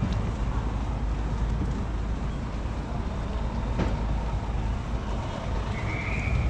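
Steady low rumble of street traffic, with a few faint clicks and a brief high tone near the end.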